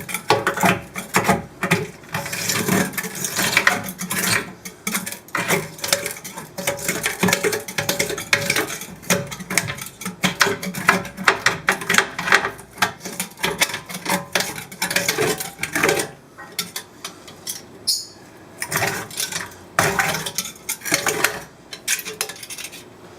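Razor blade scraping and cutting old silicone out of an aquarium's glass seams, metal grating against glass in a dense run of short scrapes and clicks that thins out after about sixteen seconds.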